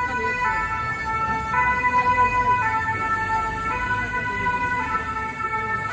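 French fire engine's two-tone siren sounding its alternating high–low 'pin-pon' call, switching pitch about once a second, with a low rumble beneath.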